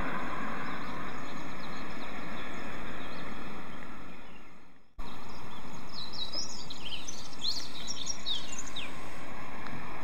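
Steady outdoor city street noise. It fades out to silence about halfway through and cuts back in sharply. After that, birds chirp repeatedly for a few seconds.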